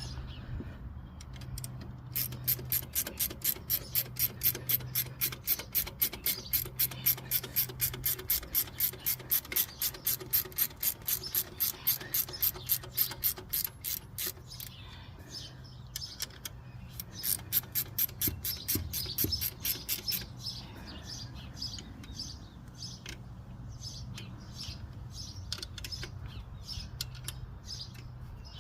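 Ratchet wrench clicking in quick, even strokes of about three a second, with a pause in the middle and a short second run, then softer, irregular clicks near the end.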